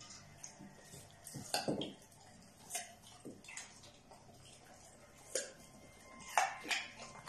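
Dog nosing a raw carrot about on a tiled floor: scattered sharp taps and clicks on the tile at irregular intervals, the loudest pair near the end.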